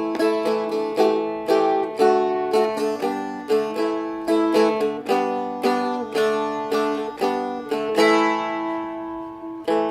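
Seagull Merlin M4 four-string dulcimer strummed in a quick run of chord changes on A, D and G, about two strums a second. About eight seconds in a chord is left to ring out and fade, then the strumming picks up again just before the end.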